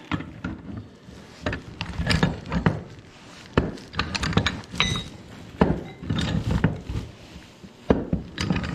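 Wrench working a threaded 90-degree elbow onto a gas pipe nipple: a string of irregular metal knocks and clicks as the fitting is cranked on, with a brief metallic ring about halfway through.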